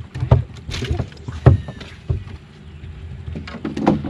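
Knocks and thumps of people moving and handling gear on the fiberglass deck of a bass boat, over a steady low hum.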